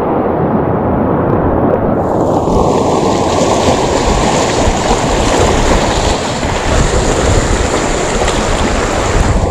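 Sea waves breaking and washing against breakwater rocks, with wind buffeting the microphone: a loud, steady rushing noise.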